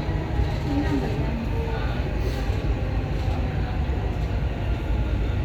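Dubai Metro train running between stations, a steady low rumble heard from inside the carriage.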